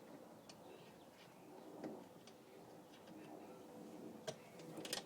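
Faint, scattered small metallic clicks and taps as a bolt is fitted by hand into the power-window mechanism inside a car door, with a sharper click about four seconds in and a couple more near the end.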